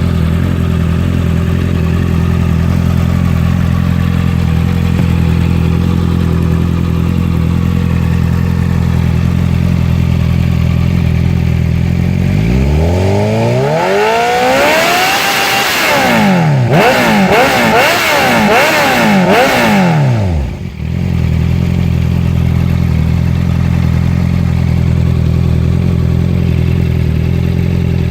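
Honda CB650F inline-four motorcycle engine through an aftermarket Jeskap carbon exhaust, loud: it idles steadily, then is revved several times in quick succession with the pitch sweeping up and down, and drops back to a steady idle before another rev begins at the end.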